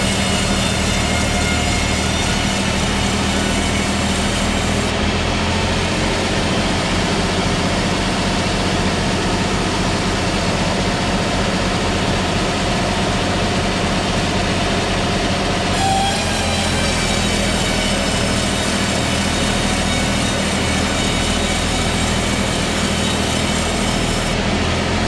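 Sawmill saw and its drive engine running steadily, a loud low drone with a high whine over it. The high whine drops away about five seconds in and comes back about sixteen seconds in.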